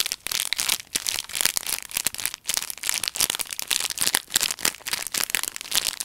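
Plastic-wrapped package of dried soba noodles squeezed and worked in the fingers: a dense run of crinkling crackles and squeaks from the wrapper and the dry noodles inside.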